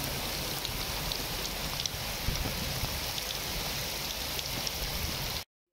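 Steady rain, with scattered small drop ticks, which cuts off abruptly near the end.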